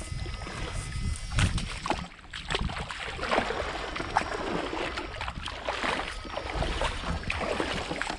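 Water sloshing and splashing as a person wades knee-deep through a shallow canal, legs pushing through the water in irregular swishes.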